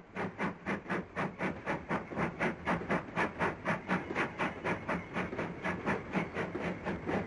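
LMS NCC W-Class 2-6-0 steam locomotive working a heavy goods train, its exhaust beats coming fast and even at about five or six a second, with a hiss of steam.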